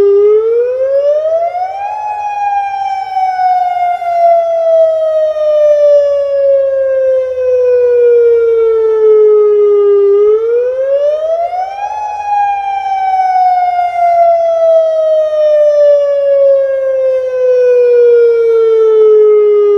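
Federal Signal Modulator 6024B electronic outdoor warning siren sounding a wail for its monthly test. The pitch rises over about two seconds, then slowly falls over about eight, and the cycle comes twice.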